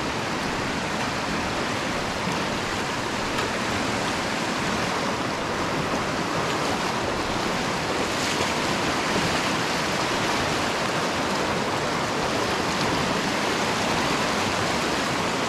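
Rushing water of a fast, turbulent river, a steady even rush.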